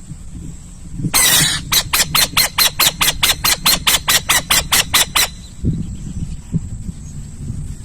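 An owl calling: one harsh rasping note about a second in, then a rapid series of about sixteen short harsh notes, about four and a half a second, that stops suddenly a little past the middle.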